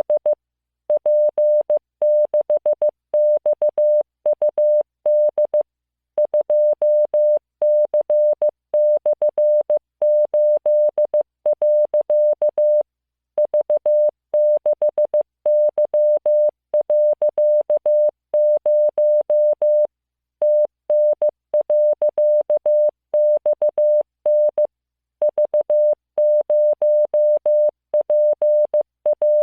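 Morse code practice tones: a single steady beep keyed on and off in dots and dashes, sending random five-character groups of letters and figures at a steady pace, with a slightly longer pause between groups every several seconds.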